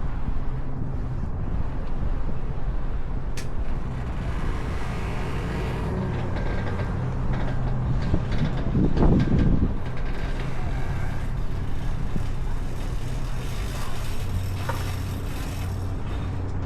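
An engine running steadily at low revs, with a brief louder surge about nine seconds in.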